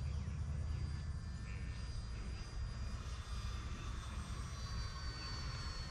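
Electric RC model Corsair flying high overhead: a thin, high motor-and-propeller whine that dips slightly in pitch about four seconds in, over a steady low rumble.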